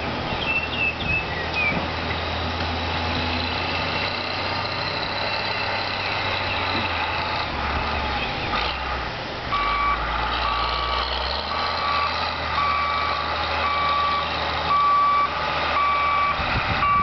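A heavy vehicle's engine running with a steady low rumble; about halfway through, its reversing alarm starts beeping about once a second as it backs up.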